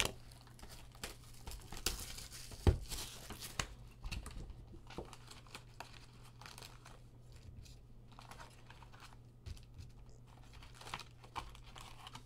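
Cardboard of a Donruss baseball hobby box being torn and pulled open, with a few sharp knocks, the loudest about two and a half seconds in. After that, foil card packs crinkle as they are handled and lifted out of the box.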